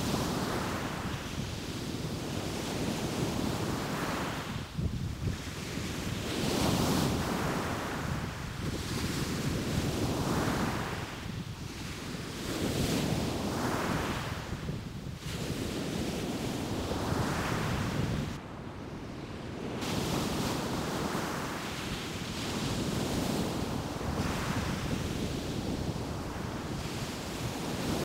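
Ocean surf breaking and washing up a sandy beach, swelling and ebbing in repeated surges about every two seconds, with wind rumbling on the microphone.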